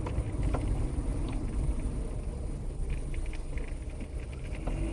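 Steady low rumble of road and engine noise inside the cabin of a 1994 Mercury Topaz while it is driven, with a few faint clicks.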